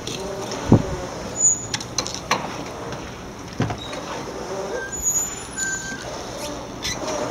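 Scattered knocks and clanks, the loudest about a second in, with a few brief high squeaks over a steady background hiss, from a man working with a metal pole on the deck of a moored fishing boat.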